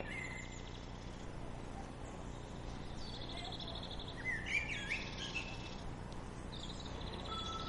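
Small birds chirping, with short whistled calls and a quick trill about three seconds in, over a steady low hum.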